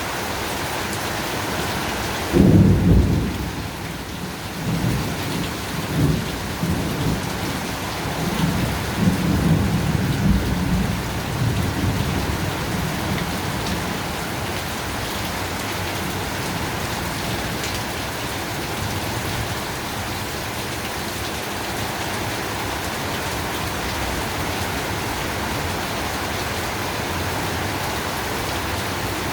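Heavy rain pouring steadily. A sudden loud thunderclap about two and a half seconds in, then rolling thunder rumbling in waves for about ten seconds before dying away under the rain.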